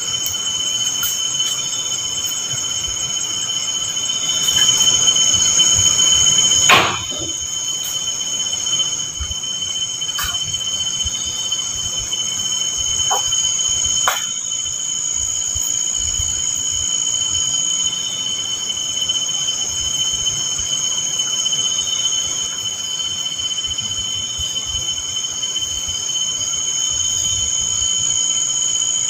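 Steady, high-pitched chorus of night insects, with a few sharp clicks and one louder knock about seven seconds in.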